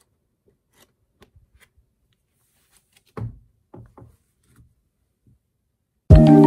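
Faint paper handling, then a few soft thuds of booklets set down on a wooden table about three seconds in. Just before the end, a loud chiming music sting starts suddenly.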